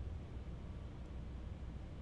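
Quiet steady room tone: a low, even background hum with no distinct sound events.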